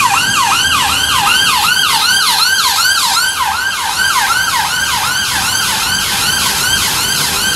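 Emergency vehicle siren in a rapid yelp, about three rising-and-falling sweeps a second.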